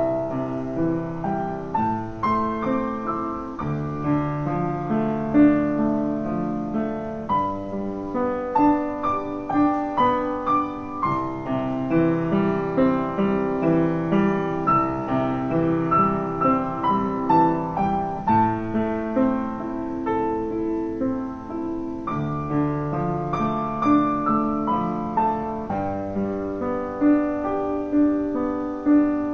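Background piano music: a slow melody over a bass line, one note after another.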